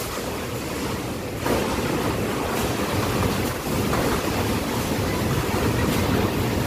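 Super typhoon wind blowing hard in gusts, a loud continuous rush of noise that swells about one and a half seconds in, with wind buffeting the microphone.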